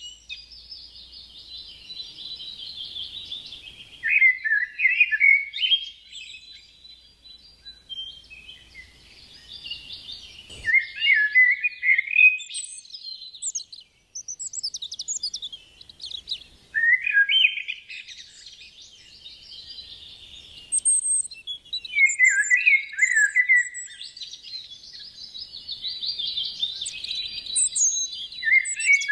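Songbird singing, repeating the same song about every six seconds: a soft, high twittering run that ends in louder, lower chirping notes.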